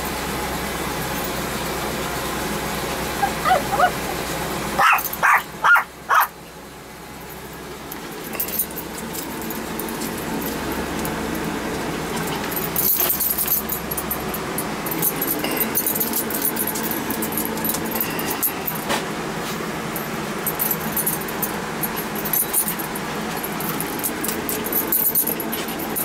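Small dog barking, a quick series of short yips about three to six seconds in, over a steady hum inside a van cab.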